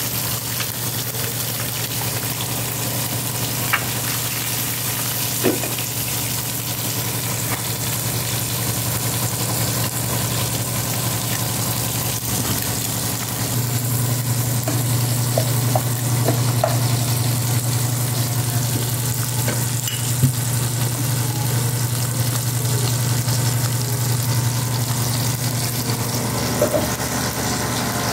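Bacon sizzling and frying in a pan, a steady hiss with a few light clicks. Under it runs a steady low hum that grows louder about halfway through.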